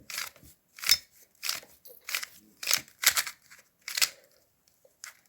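YJ MGC Square-1 puzzle being turned by hand: a series of sharp plastic clicks, roughly one every half second to a second, as the magnetic layers snap into place. The puzzle is unlubricated, fresh out of the box.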